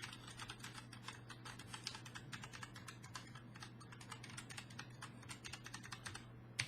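Quick, continuous typing on a Das Keyboard 4C Professional with Gateron Brown tactile mechanical switches, many keystrokes a second, fairly quiet.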